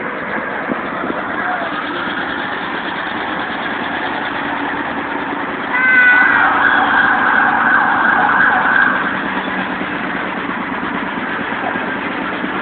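Street noise at a parade: passing vehicles and people, with a louder, higher-pitched sound that starts suddenly about six seconds in and lasts about three seconds.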